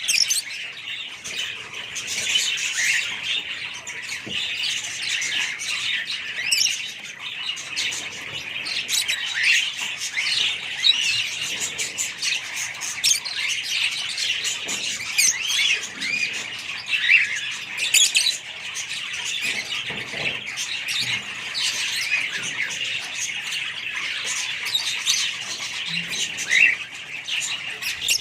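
A flock of Fischer's lovebirds chirping and squawking together in a dense, unbroken chatter of many overlapping short, high calls.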